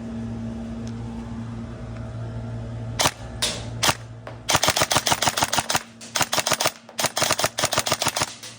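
Airsoft electric rifle (AEG) firing: a couple of single shots about three seconds in, then rapid full-auto bursts of sharp cracks. Before that, a steady low electrical hum.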